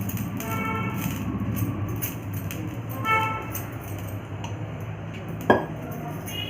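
Soft background music with two short chime-like notes over a steady low hum, and a single sharp clink about five and a half seconds in.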